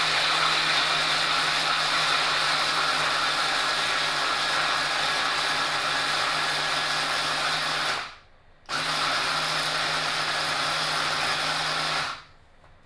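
Small Cuisinart electric food chopper's motor running steadily as it grinds raw cashews, coarse sea salt and garlic toward a mealy crumb. It stops briefly about eight seconds in, runs again, and cuts off near the end.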